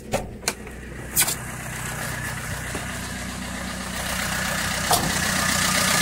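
Vauxhall Combo's common-rail diesel engine idling steadily, running with its EGR pipe disconnected and the intake port plugged. It grows louder toward the end as the open engine bay is neared. A few sharp clicks come in the first second and a half.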